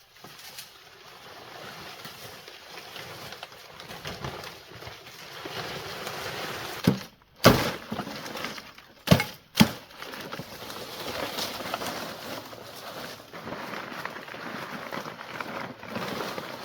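Ongoing rustling and scraping work noise, broken by four sharp, loud knocks in two pairs about halfway through.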